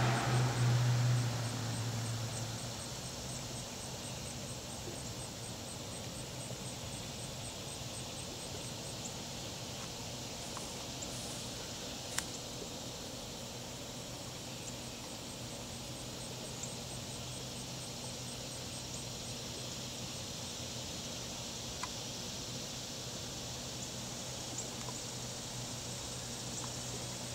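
Outdoor ambience. A passing engine's low drone fades out over the first two seconds, then a steady background hiss remains with faint, fast, high-pitched insect chirping and a couple of light clicks.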